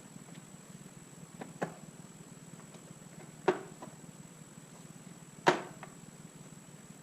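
Three sharp knocks about two seconds apart, each ringing briefly, from hand tools striking parts of a T56 manual transmission during teardown. A steady low hum runs underneath.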